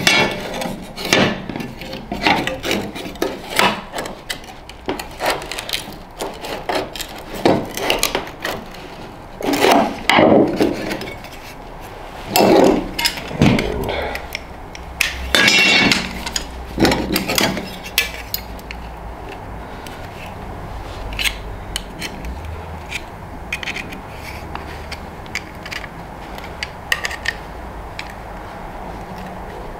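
A small steel disc for a stove air valve being bent by hand with pliers and a prying tool: metal scraping and clicking as the cut tabs are worked up and twisted. It is busiest in the first half, with several longer scrapes, and thins to scattered clicks later.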